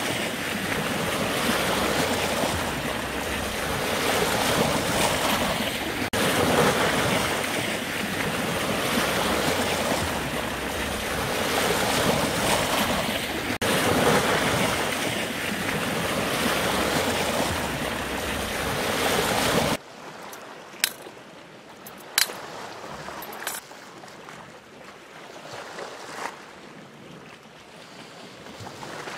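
Sea waves breaking and washing over shoreline rocks, swelling and easing every few seconds. About two-thirds of the way through it drops suddenly to a much quieter wash of water, with a few sharp clicks.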